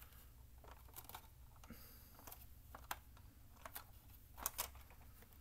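Faint, scattered clicks and taps of hard plastic as hands handle and press on a Bruder Land Rover Defender toy, feeling for how its roof comes off, over a low room hum.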